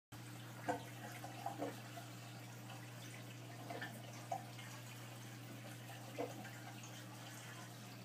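Aquarium filter running: faint trickling and gurgling water over a steady low hum, with a few short louder gurgles now and then.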